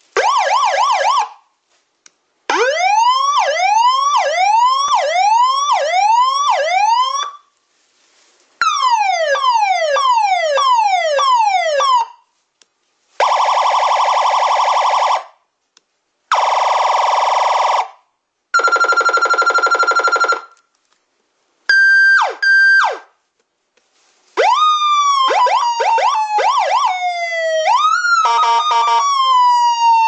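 A sequence of different electronic emergency-vehicle siren tones, one after another with short gaps: rising sweeps repeating about once a second, then falling sweeps, then several steady horn-like tones, and near the end a slow falling wail with fast warbles over it.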